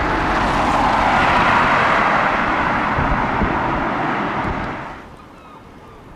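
Loud, even rushing noise of a passing vehicle with a low, uneven rumble under it. It swells over the first couple of seconds, then cuts off abruptly about five seconds in, leaving faint short bird chirps.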